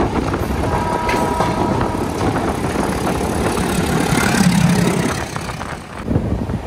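Rumble and clatter of a moving passenger train heard from an open coach door. About four seconds in, the low engine hum of a passing diesel locomotive swells and fades.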